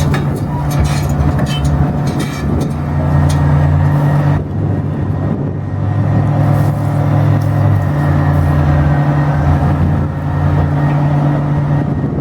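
Large engine of heavy demolition machinery running steadily. Its deeper note swells and eases several times as the load changes.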